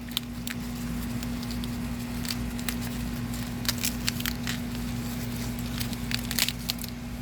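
Corn leaves and husks rustling and crackling as ears of corn are snapped off the stalks by hand, with many short sharp crackles scattered throughout.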